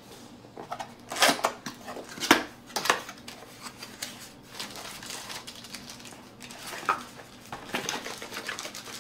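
Cardboard product box being opened by hand: irregular scrapes, taps and rustles as the lid slides off and the flaps are folded back, the sharpest about one, two and three seconds in.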